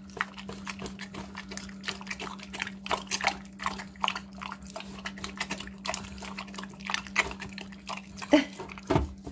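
Mini pig eating mushy food from a stainless steel bowl: irregular wet smacking and slurping, with a louder knock near the end.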